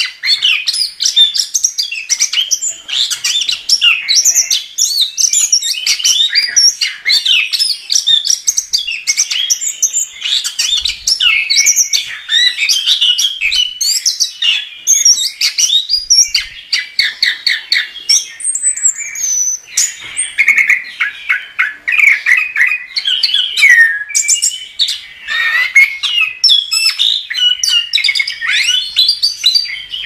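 Chestnut-capped thrush (anis kembang) in full, nonstop song: a rapid, unbroken stream of varied chirps, trills and whistled phrases.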